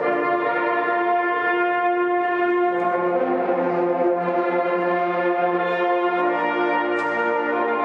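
Ensemble of brass hunting horns playing held chords together, moving to a new chord about a third of the way in and again near the end.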